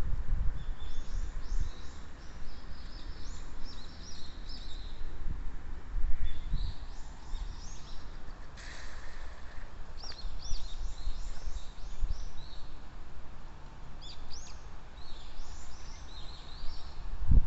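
Small songbirds singing, repeated phrases of high chirping notes coming and going, over a steady low rumble.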